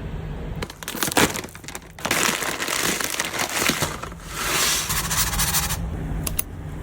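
Crisp crinkling and crunching from food being handled, coming after a few sharp clicks in two long stretches.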